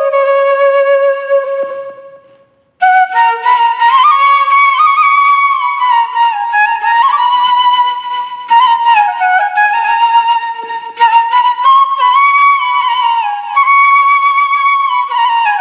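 Background music led by a flute playing a melody with sliding notes. It fades out about two seconds in, then a new phrase starts abruptly a moment later and carries on.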